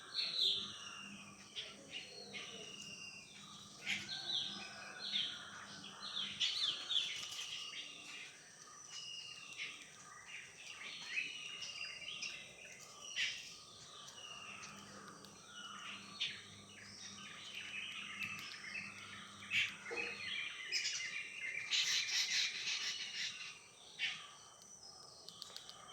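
Several birds chirping and calling at once, a dense run of short, high chirps and trills that grows busiest near the end.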